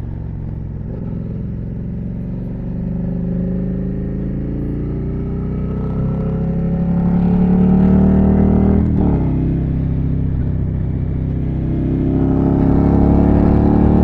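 Suzuki SV650's V-twin engine through an SC Project titanium exhaust with its DB-killer baffle removed, accelerating: the note climbs in pitch and loudness, breaks and drops about nine seconds in as it changes up a gear, then climbs again.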